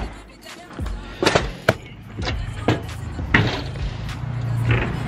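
Irregular knocks, taps and rubbing from a handheld camera being handled close to its microphone. A steady low hum comes in during the second half.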